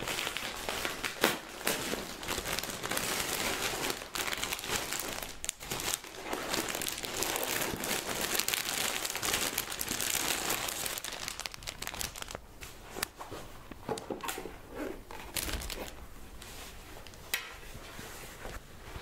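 Packaging crinkling and rustling as a parcel is unpacked by hand. It is dense and continuous for about the first twelve seconds, then turns to quieter handling with a few sharp clicks.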